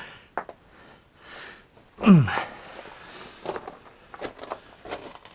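A breath, then a short vocal grunt falling in pitch about two seconds in, followed by scattered small clicks and scrapes on rock.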